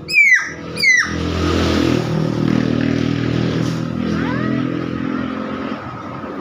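Nias hill myna giving two loud, sharp calls that slide down in pitch within the first second. A steady low engine drone then takes over for the rest, with a few faint rising whistles about four seconds in.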